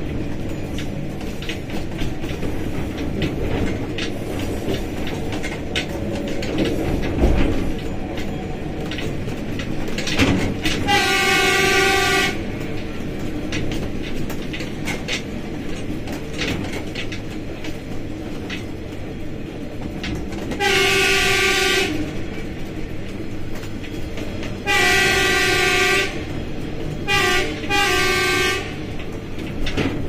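Diesel locomotive running, with steady engine and wheel-on-rail noise, sounding its horn: one blast about eleven seconds in, then near the end two long blasts followed by two short ones.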